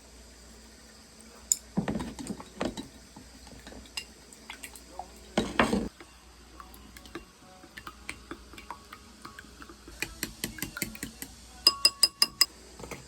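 Dishes and metal utensils clattering and clinking, with a longer clatter about halfway through and a quick run of ringing taps on a dish near the end.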